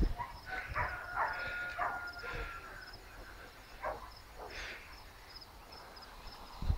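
A few faint dog barks, most of them in the first three seconds, over an insect chirping high and steadily about three times a second.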